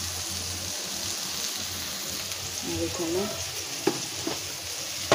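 Marinated fish frying in hot oil in a frying pan: a steady sizzling hiss.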